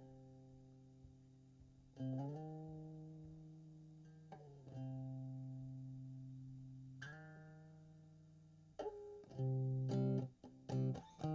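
Electric guitar playing a slow instrumental intro: single chords struck and left to ring out for about two seconds each. Near the end the chords come faster and louder as strums.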